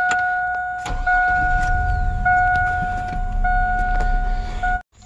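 Chevrolet S-10 pickup's engine catching and running with a steady deep rumble from about a second in, while the dashboard warning chime sounds in long beeps with short breaks. Both cut off suddenly near the end.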